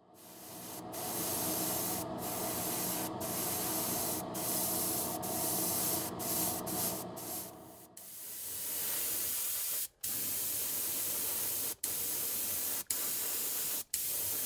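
Airbrush spraying paint in a run of bursts, the hiss cutting off briefly each time the trigger is let go. A low hum sits under the hiss for the first half. The paint is Mr. Color C28 Steel going onto the drive chain and sprocket parts.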